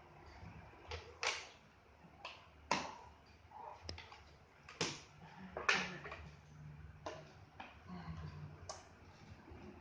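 Scattered sharp clicks and light knocks, about nine of them at uneven intervals, over a quiet room background.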